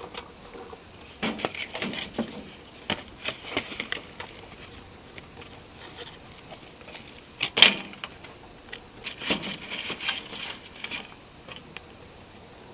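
Irregular clicks, knocks and rustling of hands handling objects, with a sharper knock about seven and a half seconds in.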